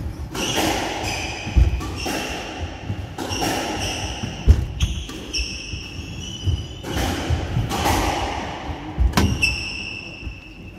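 Squash rally: the ball struck by rackets and hitting the court walls in a string of sharp knocks a second or more apart, with short high squeaks of squash shoes on the wooden court floor between shots.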